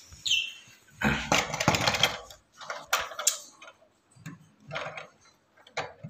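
Short high chirps from caged small parrots, with a clattering rattle of cage or nest-box handling about a second in.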